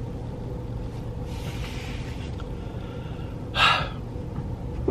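A man breathes out softly, then gives one short, sharp gasp about three and a half seconds in, over a steady low hum inside a car.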